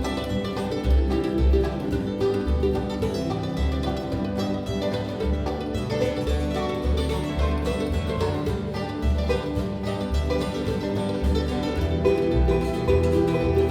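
Bluegrass band playing an instrumental break, banjo and guitar picking over a steady walking bass of about two notes a second.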